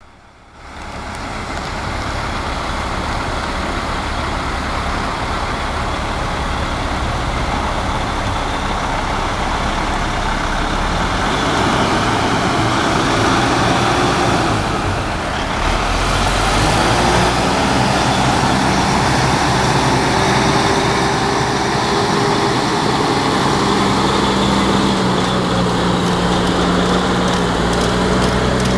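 Peterbilt semi truck's diesel engine running under load as it pulls a lowboy trailer carrying an excavator. The sound is loud and continuous, with a change in engine note about halfway through and a steadier humming tone after that.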